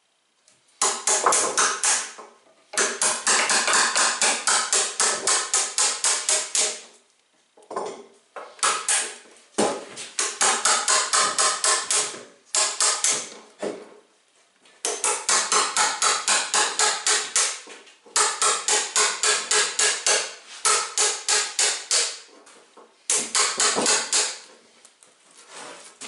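Claw hammer tapping a chisel to chop out a lap joint in a wooden beam: runs of quick, light strikes, about five a second, in bursts of one to four seconds with short pauses between.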